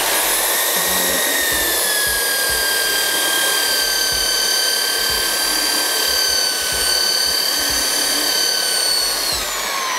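Electric belt sander running steadily on rough pallet-wood boards, taking off the coarse grain, with a steady whine over the rasp of the belt. Near the end it is switched off and the whine falls in pitch as it spins down.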